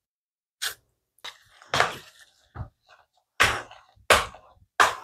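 Hand potato masher pushing down into boiled potatoes in a plastic mixing bowl: a run of short soft thuds, about seven, roughly one every two-thirds of a second.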